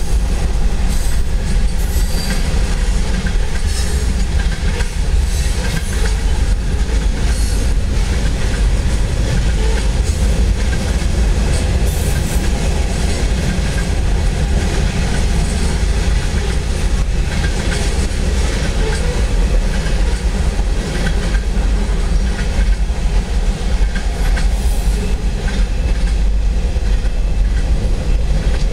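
Freight cars rolling across an overpass bridge: a steady heavy rumble with repeated clacks of the wheels over the rail joints.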